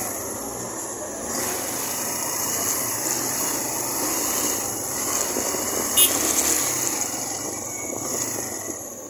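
Suzuki GN125 motorcycle ridden through traffic: its single-cylinder engine running under a steady rush of riding noise, with one sharp click about six seconds in, and the sound easing off near the end.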